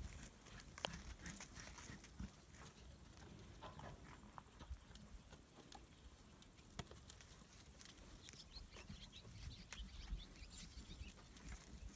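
Faint, scattered taps and scuffs of billy goats' hooves shifting on packed dirt, over a low background hush.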